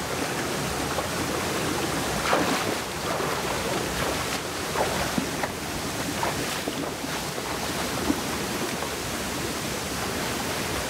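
A small forest stream running over rocks: a steady rush of flowing water with a few faint gurgles and splashes.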